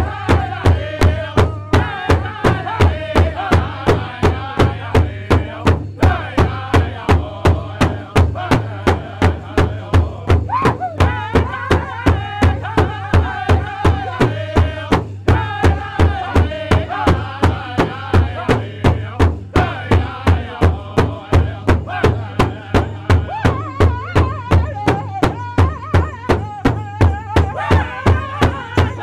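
Powwow drum group singing a grand entry song: several voices singing together over a big drum struck in a steady, even beat.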